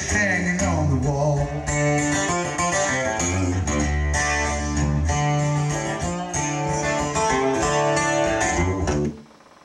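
Recorded guitar music played through homemade flat-panel speakers, 12-inch aluminium sheets each driven by a Dayton sound exciter, with a subwoofer carrying a strong bass line. The music stops abruptly near the end.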